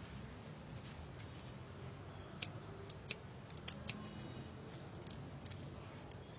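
Pruning shears snipping unwanted branches off a bonsai tree: a few short, sharp clicks at irregular intervals, with a faint low background hum.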